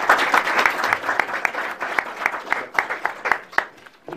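Audience applauding, strongest at the start and thinning to a few separate claps before it stops near the end.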